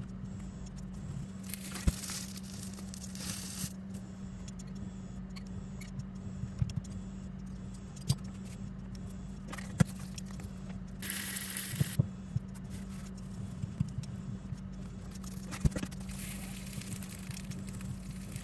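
Black slotted plastic spatula scraping and tapping against a nonstick frying pan while a stuffed flatbread is turned, giving several sharp clicks and a few short scrapes, with the loudest scrape about eleven seconds in. A steady low hum runs underneath.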